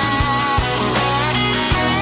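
Background music: an instrumental passage of a song, with guitar lines over a steady drum beat.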